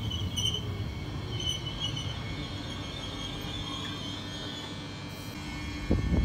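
Regio 2N double-deck electric train moving away: a steady low rumble with a high-pitched ringing tone that comes and goes, fading slightly. About six seconds in, a sudden louder low rumble starts.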